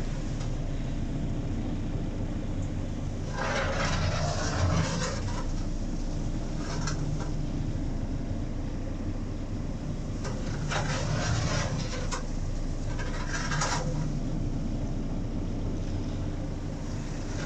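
Steady low mechanical rumble from the tractor-driven RMH VR20 vertical-auger feed mixer wagon, broken by several short bursts of scraping noise.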